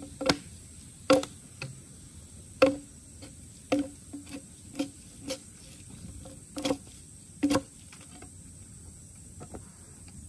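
About nine sharp clicks or snaps at uneven intervals, roughly one a second, over a steady high-pitched insect drone.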